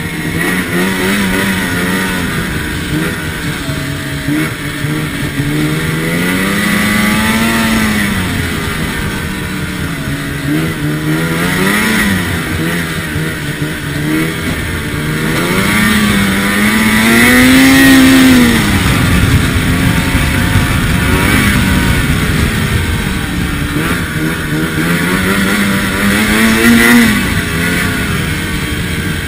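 Ski-Doo Rev snowmobile engine running under way, its pitch rising and falling several times as the throttle is opened and eased, loudest just past halfway and again near the end.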